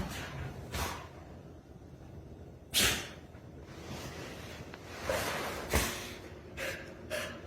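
A few short, sharp snorts of breath, the loudest about three seconds in.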